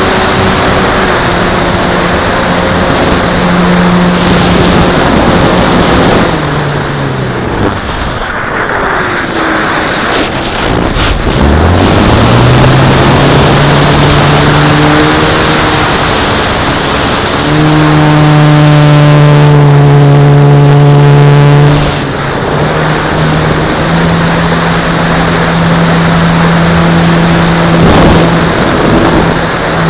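RC Extra 330L model plane's engine and propeller heard from on board, with wind rushing over the microphone. The engine note drops as the throttle comes back about six seconds in, climbs again a few seconds later, runs loudest and steady for a few seconds past the middle, then eases off to a steady cruise.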